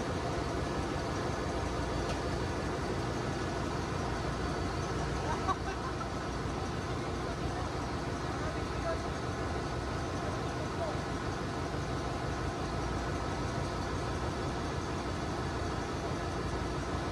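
Steady drone of running machinery in a ship's engine room, holding many fixed tones at an even level, with one short knock about five and a half seconds in.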